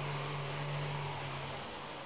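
Vacuum cleaner motor running with a steady whooshing hum, the hum dropping and the sound beginning to fade near the end.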